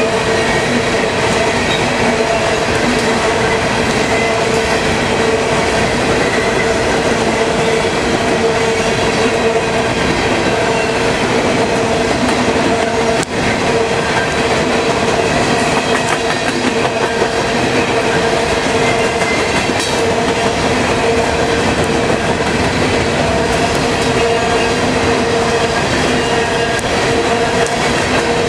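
Empty steel coal hopper cars of a freight train rolling past at speed: a steady, loud rumble and rattle of wheels on rail, with a steady tone from the passing wheels over it.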